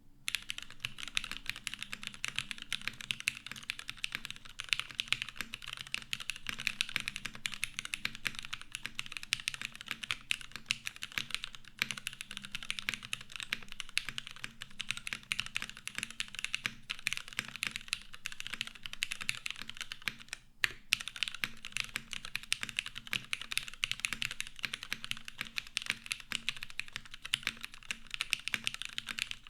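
Continuous fast typing on a gasket-mounted Noxary 378 mechanical keyboard with lubed Cherry MX Black clear-top linear switches on an aluminium plate and GMK keycaps: a dense stream of keystroke clicks and clacks, with a brief pause about two-thirds of the way through.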